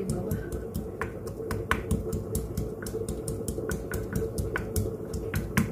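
Wooden pestle pounding garlic in a glazed ceramic mortar: rapid, slightly irregular knocks, about four a second.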